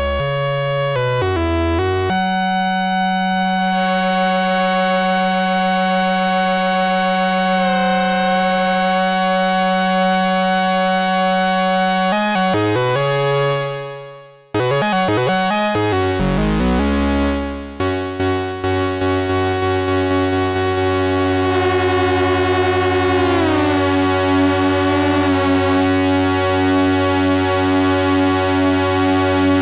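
DIY analogue synthesizer (AD-3M) playing sustained, buzzy droning notes rich in overtones. It moves through a few quick note changes, holds one note for about ten seconds, and drops out briefly about halfway. It then settles on a lower held note, over which one voice slides down in pitch.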